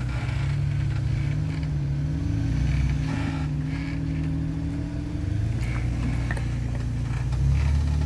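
Jeep engine running at low speed as the vehicle crawls over rocks, its pitch shifting a little, with a few faint clicks.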